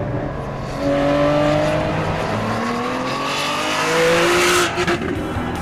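Completely unsilenced 6.0-litre V12 of the Aston Martin V12 Zagato race car accelerating hard, its pitch climbing in two rising sweeps. It is loudest just before it cuts off suddenly near the end.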